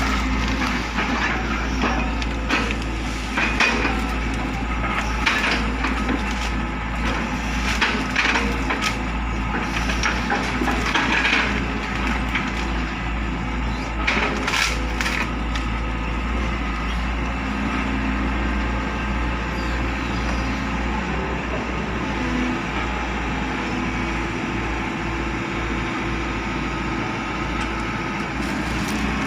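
Heavy excavator's diesel engine running steadily under load, with many sharp cracks and snaps over roughly the first half that thin out in the second half.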